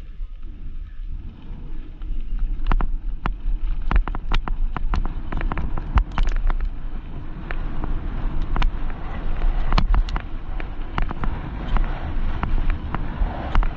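Mountain bike riding down a rough bike-park trail, with wind rumbling on the microphone. From about two and a half seconds in there are frequent sharp, irregular clacks and rattles as the bike runs over the rough ground.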